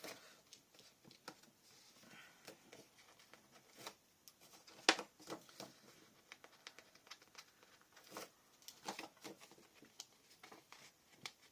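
Paper and cardstock being handled on a craft table: light rustling and scattered soft taps and clicks, the sharpest about five seconds in.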